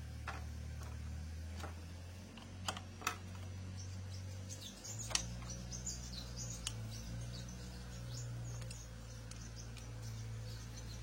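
A few sharp metallic clicks and clinks from a 14 mm socket wrench and an adjustable wrench working the magneto nut as it is tightened, over a steady low hum. Birds chirp faintly in the middle.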